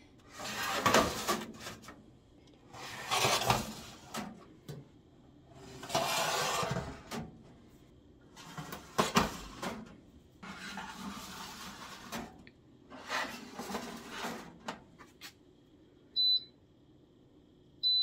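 Wire-rack trays being slid into a Cosori food dehydrator, with a run of short scraping rattles. Near the end come two short high beeps from its touch panel as the temperature is stepped up.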